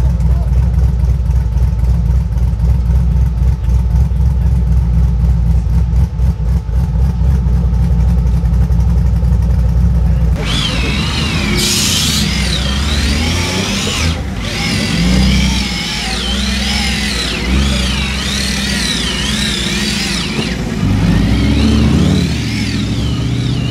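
Ultra4 off-road race car engines in deep mud. First a steady, deep, low rumble; then, about ten seconds in, an engine revving up and down again and again as the car claws up a muddy bank.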